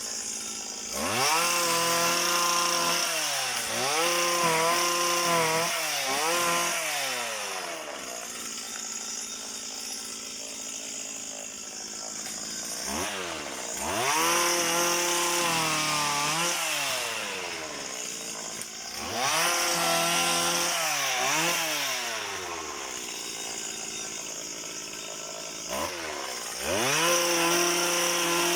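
Motorised pole cutter (cantas) for oil palm fronds, its small petrol engine revved up in repeated short bursts and dropping back to idle between them as the fronds are cut.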